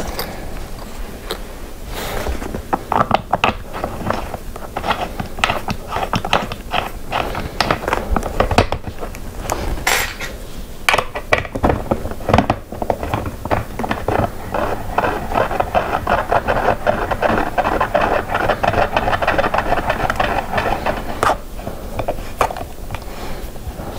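Hand tool driving a long screw through a gaming chair's armrest bracket into the seat frame: a fast run of clicks with metal scraping and rubbing as the screw is turned in.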